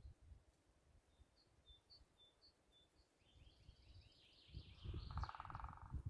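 Faint wild birdsong: a few short high chirps, then a fast trill of quick falling notes in the second half, with a brief rapid pulsing sound lower in pitch near the end. Low gusts of wind rumble on the microphone.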